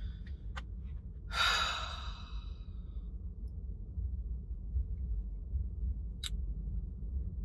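A man's long, breathy sigh about a second and a half in, followed by a single short click near the end, over a steady low hum.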